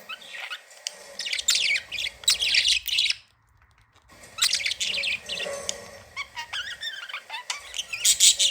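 Budgerigars chirping and warbling in quick, high chirps. The chirping stops for under a second about three seconds in, then resumes.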